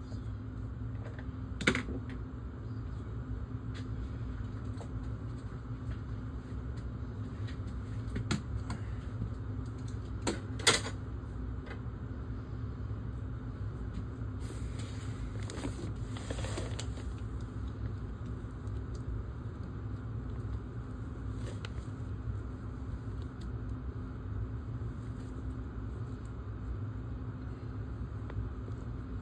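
Scattered clicks and knocks, with a few seconds of rustling about halfway, from someone working in a crawlspace among pipes and insulation, over a steady low hum.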